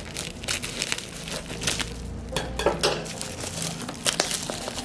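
Bubble wrap and plastic packaging crinkling and rustling in the hands as a package is unwrapped, in a quick irregular series of crackles with a few light knocks.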